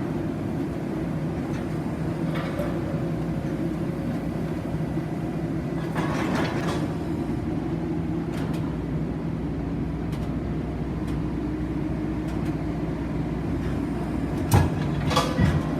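Heavy drilling rig running steadily with a low engine drone. Metallic clanks come about six seconds in, and a cluster of louder clanks near the end.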